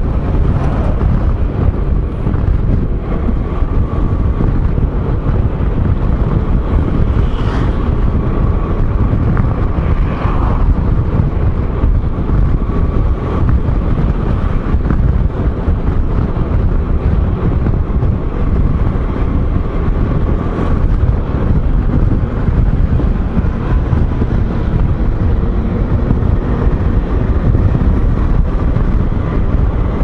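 Steady wind rush on the microphone of a moving scooter, a low rumble over the scooter's engine and road noise.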